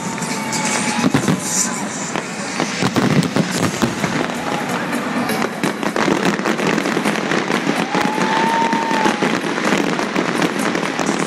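Large aerial fireworks display: a dense, continuous barrage of shell bursts, bangs and crackling.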